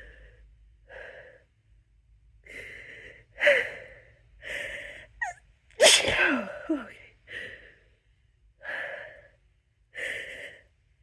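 A person sneezing with the mouth closed, trying to stifle the sneezes to keep them quiet: a run of short, breathy huffs and catching breaths about a second apart. The loudest, sharpest sneeze comes about six seconds in, with a short falling voiced squeak.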